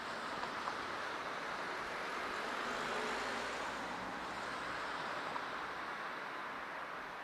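Steady hiss-like hum of distant road traffic, with no distinct vehicle standing out.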